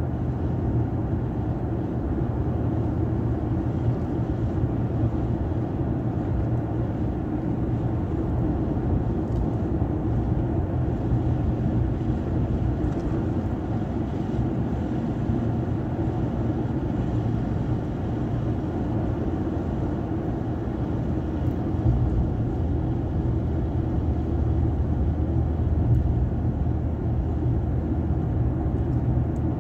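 Steady cabin noise of a moving vehicle driving at road speed: an even low rumble of engine and tyres on the road.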